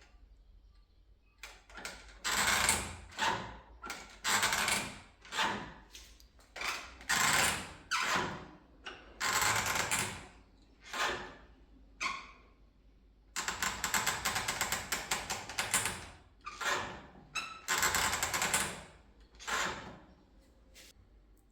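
Door handle and latch mechanism being pressed and released over and over, each press giving a harsh grinding, scraping noise. About two-thirds of the way through there is one longer, rattling stretch. This is the strange, unpleasant noise the door makes when its handle is worked.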